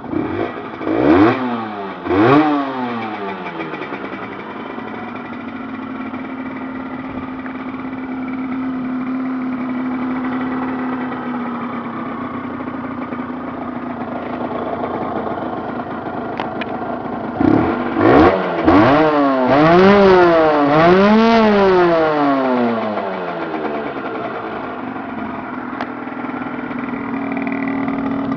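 Aprilia RS 50's 50cc two-stroke single idling, blipped twice early on and then revved about four times in quick succession near two-thirds of the way through before settling back to idle.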